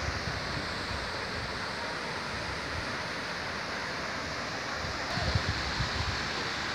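Steady rushing outdoor noise, with wind buffeting the phone's microphone in a few low thumps a little after five seconds in.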